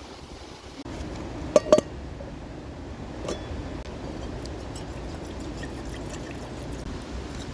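Cookware clinking: two sharp ringing clinks about a second and a half in and another about three seconds in, over a steady rushing noise.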